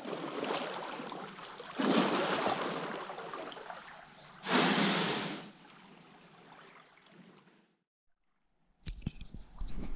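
Water splashing and washing as a canoe is paddled in to shore, with two louder swishes about two seconds and four and a half seconds in. The sound then cuts to silence, and low thumps follow near the end.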